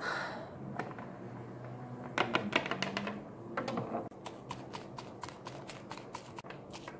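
Small plastic Littlest Pet Shop figures tapped and hopped along a wooden tabletop and handled: light clicks, a quick run of them a little after two seconds in and many scattered ticks through the second half.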